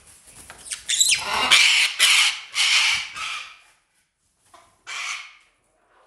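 Parrots squawking loudly: a run of several squawks over about two and a half seconds, then one more near the end.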